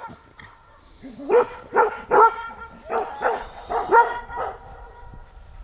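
Dog barking, a run of about six short barks starting about a second in.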